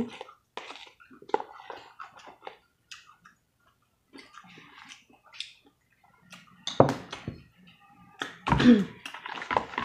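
Close-mic mouth sounds of eating fried chicken: wet chewing and lip smacks in short bursts with brief pauses, and two louder smacks near the end.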